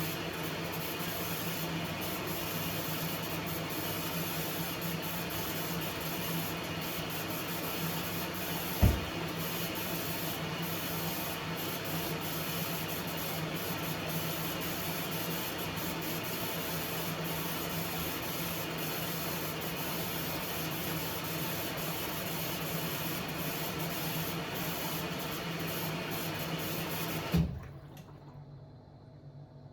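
A motor-driven machine running with a steady hum and hiss, with a single knock about nine seconds in; it is switched off with a clunk near the end and the noise stops abruptly.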